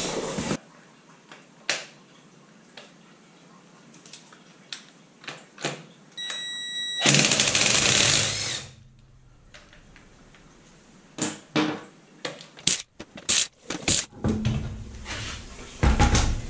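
Car dismantling work: scattered clicks and knocks of tools on plastic trim and panels. About seven seconds in comes a loud rushing burst lasting about a second and a half, and a denser run of knocks follows.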